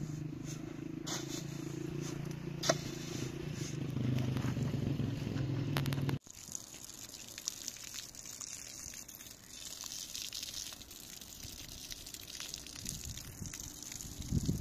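Steel shovel scraping and scooping through a dry sand-and-cement mix, over a steady low rumble. About six seconds in the sound cuts abruptly to a quieter outdoor hiss with occasional small clicks.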